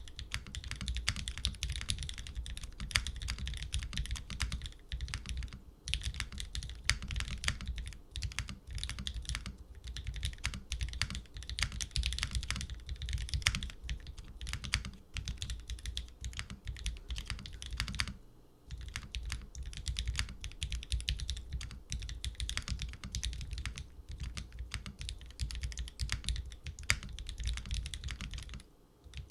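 Steady typing on a mechanical keyboard with Cherry MX Black Hyperglide linear switches in an aluminium plate with silicone gaskets and GMK keycaps: rapid key clacks and bottom-outs, with brief pauses at about six and eighteen seconds in.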